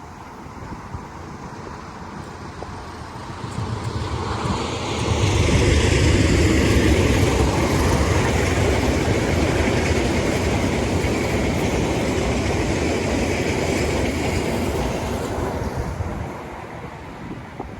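A train passing by: its running noise builds about four seconds in, stays loud for about ten seconds, then fades away near the end.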